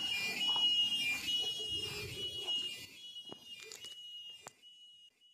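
A steady high-pitched tone holds throughout, with fainter higher overtones above it. Under it, a low rumbling noise fades out about three seconds in, and two sharp clicks come near the end.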